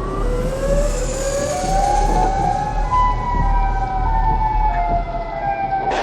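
Air-raid sirens wailing: several overlapping tones rise in pitch and then hold, over a steady low hum.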